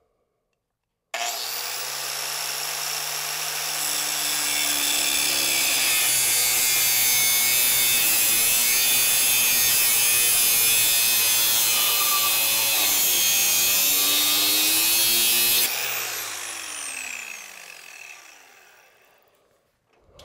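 Electric angle grinder with a thin cut-off (zip) disc starting abruptly about a second in and cutting through the motorcycle's metal exhaust-hanger tube with a steady, loud grinding. It is switched off near the end and spins down with a falling whine.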